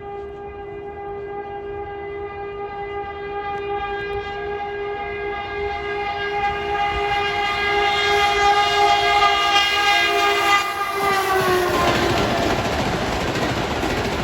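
EP2D electric multiple unit sounding its horn in one long, loud blast as it approaches, the note dropping slightly in pitch about eleven seconds in as the train passes. The horn gives way to the rushing noise and wheel clatter of the passing train.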